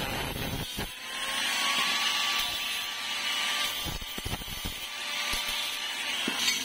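Handheld angle grinder with a thin cut-off disc cutting and grinding stainless steel tube: a steady, hissing grind over the motor's held whine. A few light knocks come about two-thirds of the way through.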